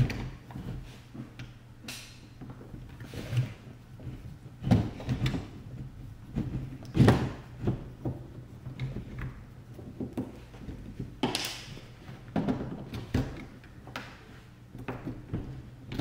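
Hand screwdriver working screws out of a plastic gel blaster, with scattered irregular clicks and knocks as the tool and hands handle the blaster on the table.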